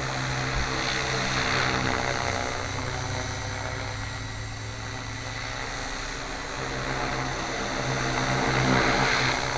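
Gaui RC helicopter in flight, its rotor and motor whirring steadily. It grows louder about a second or two in and again near the end, and is softer in between.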